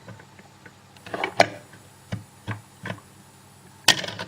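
A handful of light clicks and taps from a metal deadlock and its key being handled, spaced irregularly, the sharpest near the end.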